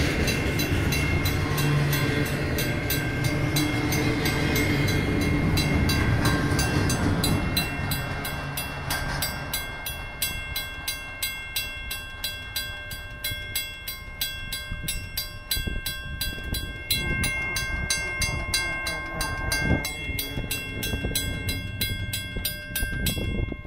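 Grade-crossing bells, including a WCH second-generation mechanical bell, ringing in a fast, even beat while a Union Pacific double-stack intermodal train rolls by. The rumble of the train's cars fades about eight seconds in as the last car passes. The bells stop just before the end.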